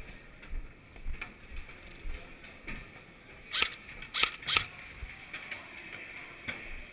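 Footsteps of a file of players walking along a cell-block gallery, with kit and gear rattling. About halfway through, a quick cluster of four sharp clicks or snaps.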